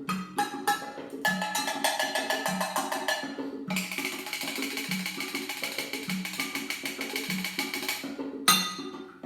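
Percussion music: a steady low drum beat under sharp wood-block-like clicks. Fast ticking runs through the first few seconds, then a sustained bright rattle from about four seconds to about eight, and a loud crash-like hit near the end.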